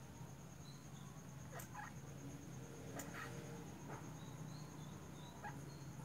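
Faint night ambience: a steady, finely pulsing high insect trill, with a few short high squeaks and several soft knocks.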